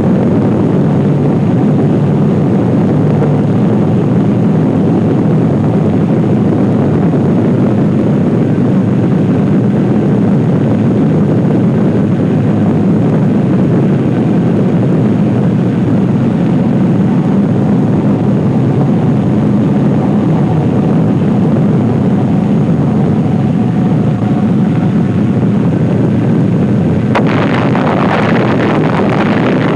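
Loud, steady low rumbling roar of an atomic explosion on an archival film soundtrack. About 27 seconds in it turns suddenly harsher, with added hiss and crackle.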